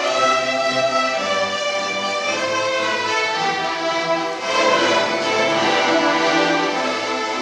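Youth orchestra playing a classical piece, violins prominent, in held, sustained notes.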